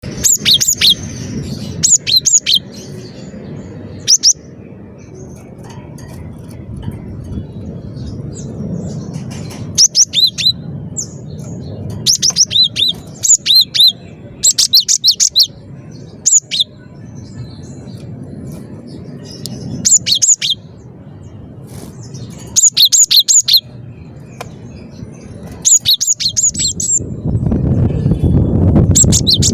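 Cinereous tit (gelatik batu) singing actively: short phrases of a few high, sharp repeated notes, coming every couple of seconds. A steady low rumble lies under the song and grows louder near the end.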